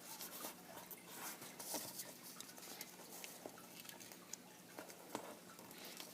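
A square sheet of origami paper faintly rustling and crackling as it is handled and creased by hand, being worked into a petal fold, with many small scattered crinkles.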